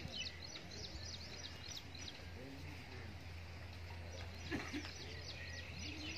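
Small birds chirping in quick runs of short, high, falling notes, with faint goat bleats now and then and a steady low hum underneath.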